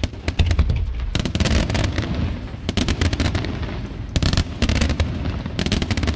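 Aerial fireworks shells bursting in rapid succession: many sharp bangs over a low rumble, with dense volleys about a second in and again around four seconds in.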